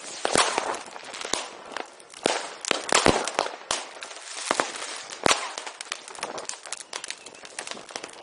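Fireworks and firecrackers going off all around: a constant crackling with many sharp bangs at irregular intervals, the loudest reports about three seconds in and just past five seconds.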